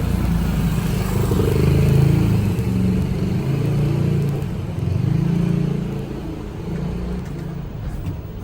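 Road vehicle engine running, its pitch rising and falling, loudest about two seconds in and easing off near the end.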